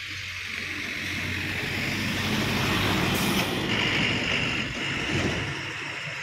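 A truck passing close by, its engine and tyre noise swelling to a peak about three seconds in and then fading away. A short, sharp hiss comes near the peak.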